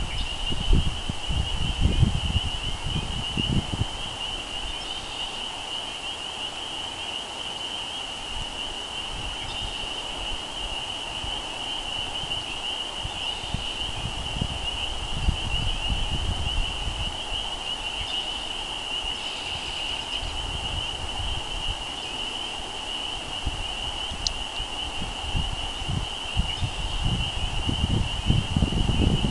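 Dense chorus of frogs: a steady, high-pitched shrill peeping without a break. Gusts of wind rumble on the microphone in the first few seconds and again near the end.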